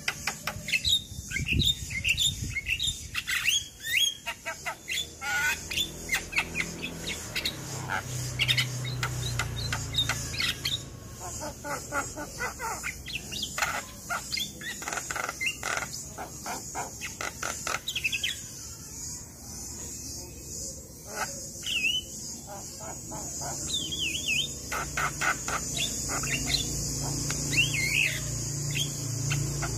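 Javan myna (jalak kebo) singing in long, rapid runs of clicks, whistled glides and harsh chattering notes, over a steady high hiss.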